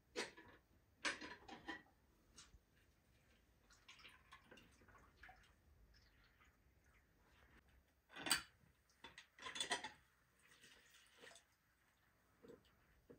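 Scattered clicks and knocks of a metal hand-lever citrus press as orange halves are loaded and squeezed, with juice dripping into a metal bowl. The sharpest knock comes about eight seconds in, followed by a quick cluster of clicks.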